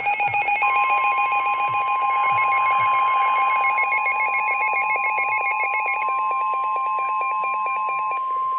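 Emergency weather alert tones: a rapidly warbling electronic alarm, joined about half a second in by a steady single-pitch warning alarm tone of the kind broadcast by NOAA Weather Radio. The warble stops near the end while the steady tone holds on.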